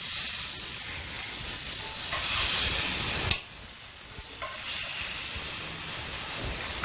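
Hot browned chuck roast pieces sizzling and hissing in a cast-iron Dutch oven as they are dropped in. The sizzle swells, is broken by a single sharp click of metal tongs on the iron a little over three seconds in, then builds again.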